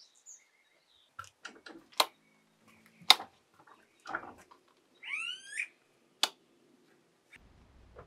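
Rocker switches on a Blue Sea Systems 8-position marine circuit breaker panel being clicked, several sharp clicks with the loudest about three and six seconds in, as each newly wired circuit is tested. A short rising chirp sounds about five seconds in.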